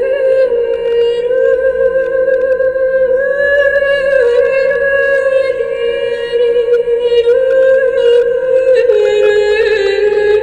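Slow music: a single voice-like melody of long held notes that steps up and down every second or two.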